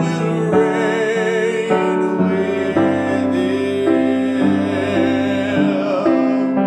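Slow worship music: sustained keyboard chords that change every second or so, under a melody line held with vibrato.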